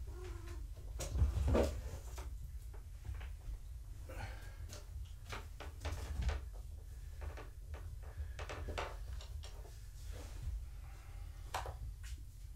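Handling noises from a white plastic kitten-weighing scale being lifted and set in place: a series of knocks and clicks, with a louder thump about a second and a half in.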